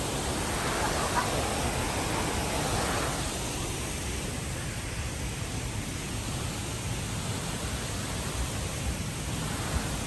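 Steady rushing noise of a waterfall's falling water, even and unbroken.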